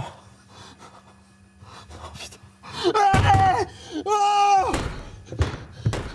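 A man's drawn-out moaning cries, two long held ones about three and four seconds in, after a quiet stretch.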